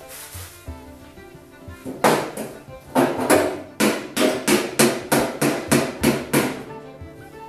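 Hammer tapping a bolt up through a wheelbarrow's wooden frame: about a dozen sharp blows, roughly three a second, starting about two seconds in, over background music.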